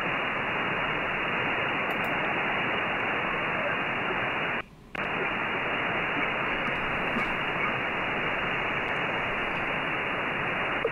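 Shortwave receiver hiss: band noise on the 20-metre amateur band from a remote SDR receiver in upper sideband mode, with nothing above about 3 kHz because of the 2.8 kHz sideband filter. The hiss drops out briefly about halfway through.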